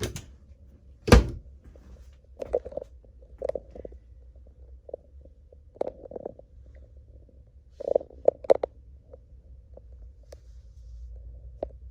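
Footsteps and soft knocks on a horse trailer's living-quarters floor, at irregular intervals of about one a second, with one loud thump about a second in.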